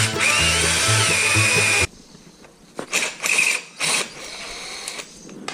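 Power drill boring into the head of a seized steel bolt: a loud run with a whine that rises and then holds steady, stopping about two seconds in, then a few short bursts of drilling a second later. Background music plays under the first run and cuts off suddenly.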